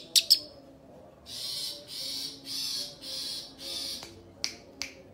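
Young long-tailed shrike calling: two sharp high notes at the start, then five harsh rasping calls about half a second apart, and two short sharp ticks near the end.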